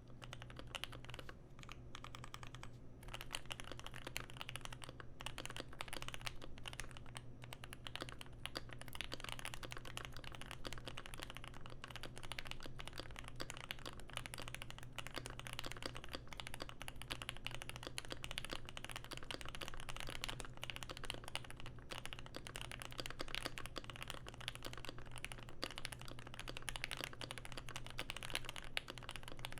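Continuous fast typing on a Keychron Q1 mechanical keyboard with an aluminum plate, lubed and filmed Pinoko switches and a tape mod, giving a dense, steady run of key clicks.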